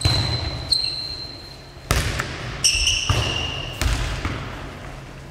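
A nohejbal ball being kicked and bouncing on a wooden sports-hall floor: about eight sharp knocks, irregularly spaced, each echoing in the large hall. Two long high-pitched squeaks ride over them, one at the start and one past the middle.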